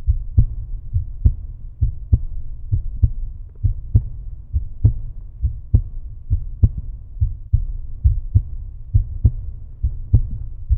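Outro music: a deep, low beat with sharp, regular hits two or three times a second.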